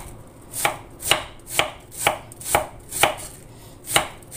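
Chef's knife thinly slicing a half head of cabbage on a cutting board: a steady run of cuts about two a second, with a brief pause a little after three seconds in.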